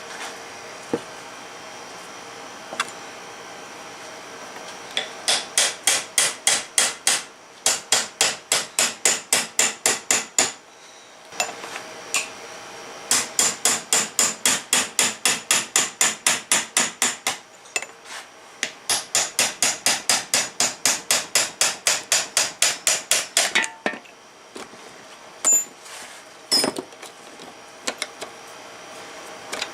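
Hammer blows on the metal of a Suzuki Samurai steering gearbox being taken apart. Steady strikes about three a second in three long runs, each strike ringing, then a few single knocks near the end.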